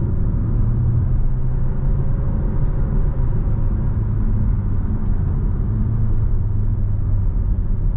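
Cabin sound of a 2024 Alfa Romeo Tonale Veloce being driven briskly at around 40 to 60 mph: a steady low rumble of engine and road noise.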